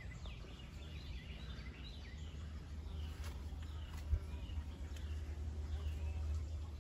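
Outdoor background: faint birds chirping in short falling notes over a steady low rumble, with a single short bump about four seconds in.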